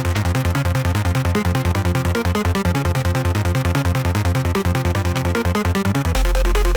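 Electronic dance music: a synth track with a fast, evenly pulsing bass line and a quick arpeggio of synth notes over it. About six seconds in, the pulsing stops and a sustained deep bass note takes over.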